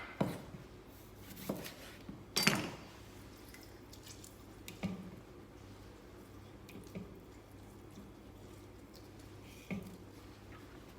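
Limes being squeezed by hand: juice dripping and splashing into the sauce container, with a few scattered small knocks, the loudest about two and a half seconds in.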